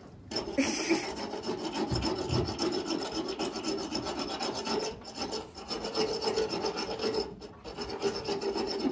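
Equine dental float rasping against a horse's teeth: a continuous rough filing that dips briefly a couple of times. The teeth are being floated, filed down because a horse's teeth keep growing.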